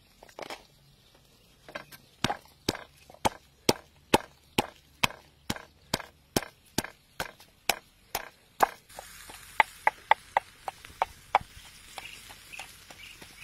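Pestle pounding chilies and garlic in a mortar: steady, sharp strikes, about two a second. After about nine seconds the strikes go on, lighter, over more background hiss.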